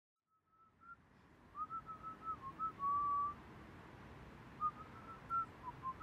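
A person whistling a tune: a string of clear notes with one longer held note, a pause of about a second midway, then more notes.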